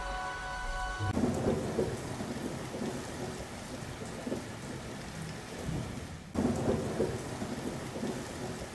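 Thunderstorm: steady heavy rain with rumbles of thunder, starting about a second in. It drops out briefly about six seconds in and comes straight back with another rumble.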